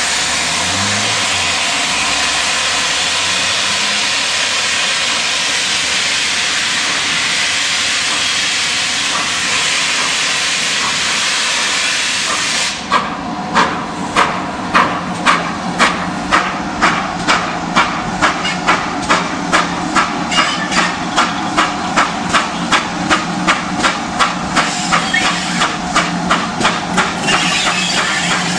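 Collett 0-6-2 tank steam locomotive No. 6619 hissing steadily with steam as it stands. Partway through the hiss stops and the engine starts away, its exhaust beating in even chuffs at about two a second.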